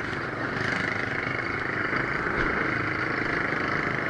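A motorbike running as it pulls away, with steady engine and road noise.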